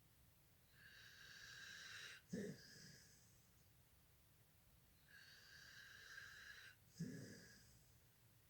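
A sleeper snoring: two breaths about four and a half seconds apart, each a long whistling in-breath that ends in a short snort.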